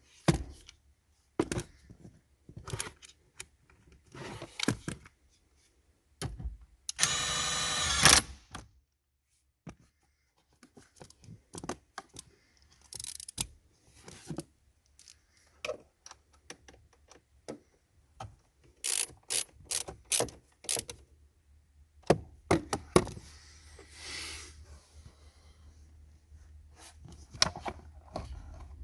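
Hand work with tools and parts: scattered clicks, knocks and handling noises, with a brief buzzing whir lasting about a second, about seven seconds in, and a quick run of sharp clicks near the middle.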